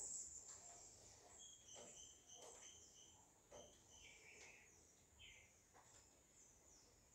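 Near silence, with faint, short high-pitched chirps in the background.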